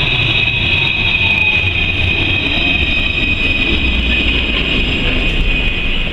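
Luas light-rail tram (Alstom Citadis) rolling slowly in alongside a platform: a low running rumble with a steady high-pitched squeal over it.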